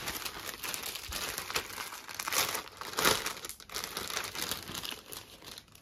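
Crinkly garment packaging rustling as a packed top is handled, in irregular bursts, loudest about two and a half and three seconds in.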